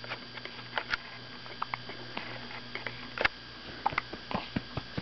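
A pet hiccuping: short, sharp hics at uneven intervals, with fainter small ticks in between.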